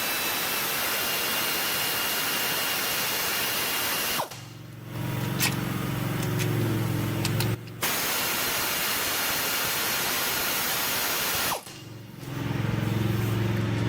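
Pneumatic air ratchet running in three long runs with short breaks between them, the last one stopping a couple of seconds before the end, as it spins out the 15 mm starter mounting bolts.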